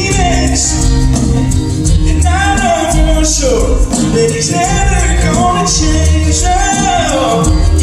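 A live band playing with a vocalist singing over bass and percussion, a Latin-flavoured groove.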